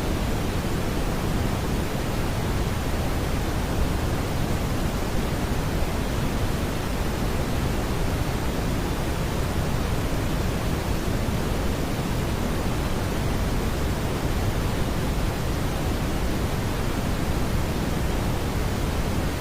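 Smoothed brown noise: a steady, even rushing hiss weighted toward the low end, with no tones or beats.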